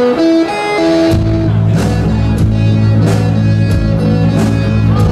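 Live rock band: a few held electric guitar notes, then about a second in the bass and drums come in with a steady beat.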